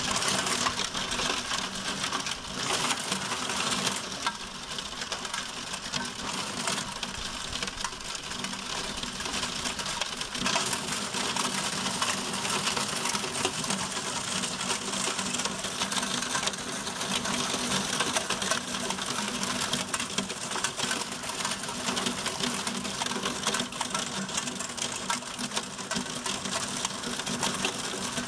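Heavy wind-driven rain in a severe thunderstorm, the drops pelting in a dense, rapid patter over the rush of strong wind.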